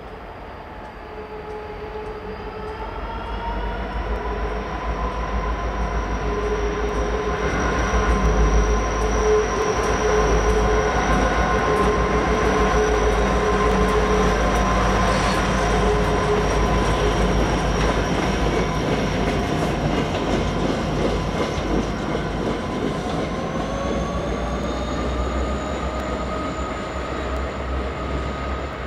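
Norfolk Southern freight train led by an EMD SD60 diesel locomotive passing, with a low engine rumble under long, steady wheel squeal from the curved track. It grows louder over the first several seconds, holds, then eases near the end.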